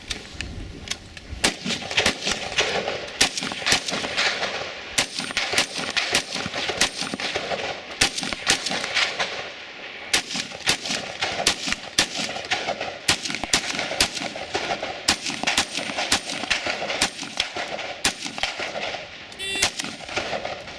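Semi-automatic rifle fire from a bullpup rifle: dozens of sharp shots in quick irregular strings, a few a second, with brief pauses between strings. Near the end a shot timer beeps once.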